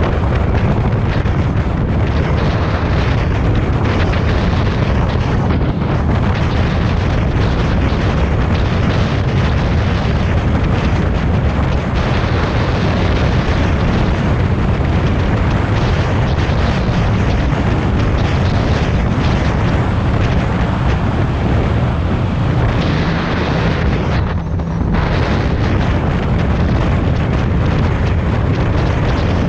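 Loud motorcycle ride: a 2014 Yamaha FZ-09's inline-three engine running under way, mostly buried under heavy wind buffeting on the camera microphone.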